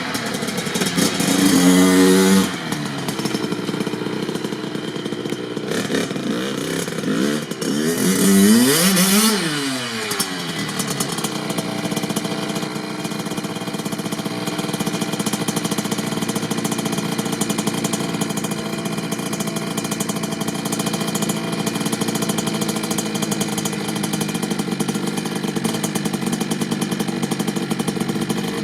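Kawasaki KX65's small single-cylinder two-stroke engine revved up about a second in, then revved higher and dropped back about eight seconds in. From about ten seconds on it runs at a steady low note.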